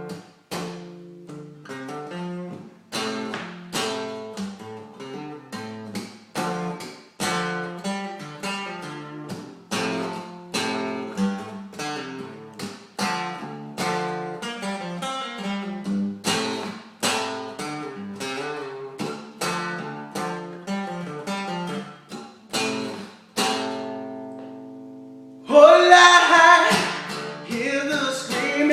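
Acoustic guitar strummed, one chord about every second, as a song intro; near the end a chord is left ringing and then a voice starts singing over the guitar.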